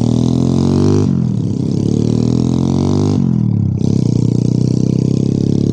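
Motorcycle engine running under way, its revs dipping and then climbing again twice: about a second in, and again just past three seconds.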